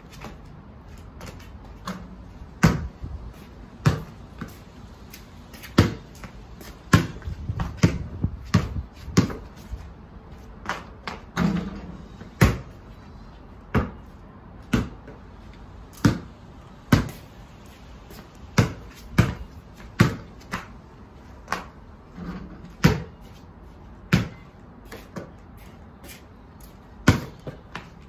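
Basketball bouncing on patio paving slabs and striking a portable hoop during dribbling and shooting. The sharp thuds come every second or two, with a quick run of bounces about eight seconds in.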